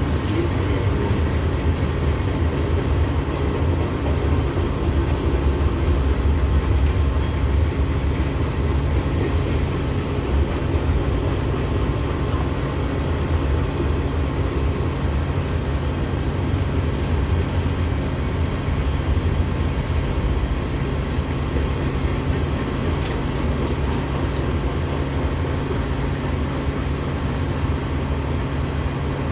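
Train running with a steady low rumble and a deep, even hum.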